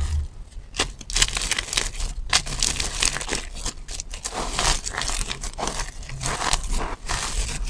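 Dry soap shavings and curls being crumbled and rubbed between the hands: a crinkly crunching that comes in irregular bursts.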